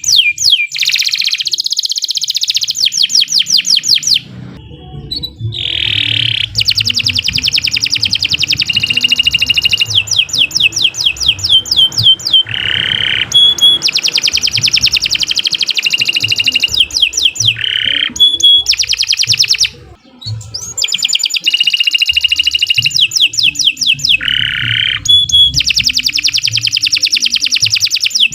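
Domestic canary singing long continuous song phrases of rapid repeated notes and trills, breaking off briefly twice.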